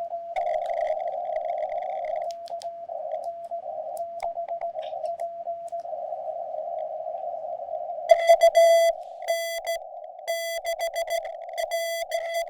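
Morse code (CW) from a small QRP Labs ham transceiver: a keyed tone of dots and dashes in a narrow band of receiver hiss. From about eight seconds in, a louder, buzzier keyed Morse tone joins it.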